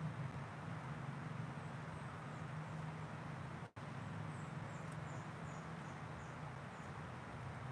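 Quiet room tone: a steady low hum, with a short run of about six faint, high, falling chirps a little past the middle. The sound drops out for an instant just before them.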